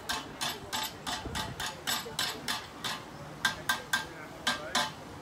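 Blacksmith's hammer striking metal on an anvil in a steady rhythm, about three to four blows a second, each with a short metallic ring, with a brief pause about three seconds in.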